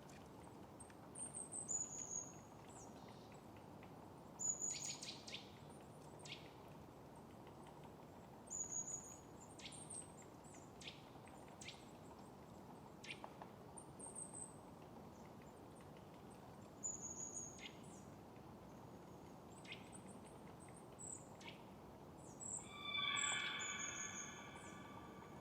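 Small birds chirping faintly outdoors: short, high, down-sliding notes and ticks every second or two. Near the end a louder sound of several held tones stacked together joins in.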